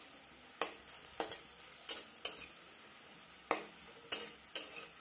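Metal spatula scraping and knocking against a kadai about seven times while stirring potato and bitter gourd pieces frying in oil, over a faint sizzle.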